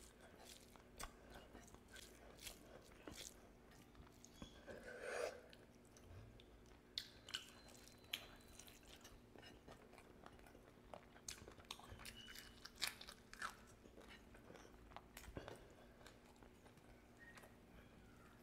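A man chewing mouthfuls of rice and mutton curry eaten by hand, close to the microphone, with many short wet smacking clicks.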